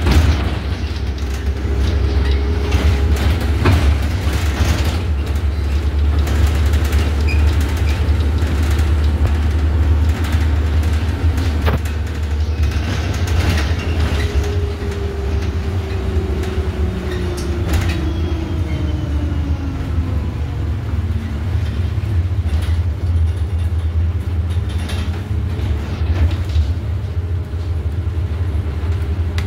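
Iveco Urbanway city bus heard from inside its passenger cabin while driving. There is a steady low rumble from the drivetrain and the road, with scattered rattles and knocks from the cabin fittings. From about halfway, a drive tone falls in pitch over several seconds as the bus slows.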